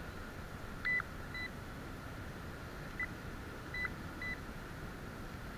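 Metal detector giving five short high beeps at one steady pitch, signalling metal in or near the dug hole, the first about a second in and the last past four seconds.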